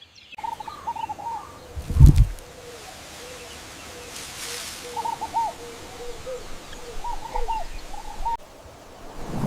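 Birds chirping in a nature ambience, short repeated calls over a faint hiss, with one heavy low thump about two seconds in.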